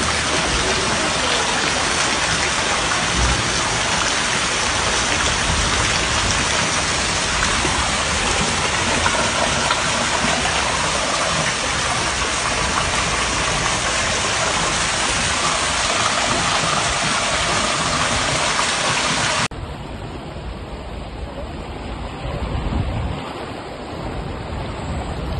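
Heavy rain pouring down with rushing floodwater: a dense, steady hiss. About nineteen seconds in it cuts to a quieter recording with a deeper rumble.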